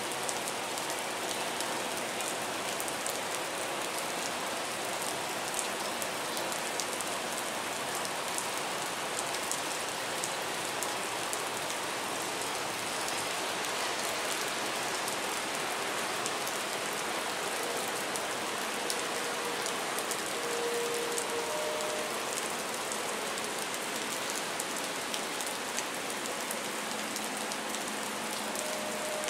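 Steady rain falling, a continuous even hiss flecked with many small raindrop ticks.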